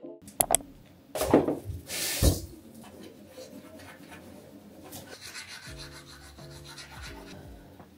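Two quick clicks, then two short rasping rubbing strokes about a second apart, followed by quieter rubbing under faint background music.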